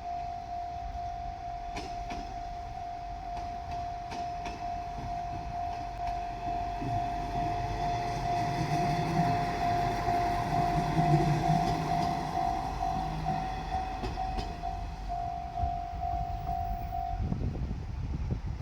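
Japanese level-crossing alarm ringing as a steady tone while a diesel railcar passes over the crossing. The railcar's engine and wheels are loudest about halfway through, with scattered clicks from the wheels over the rail joints. The alarm stops shortly before the end.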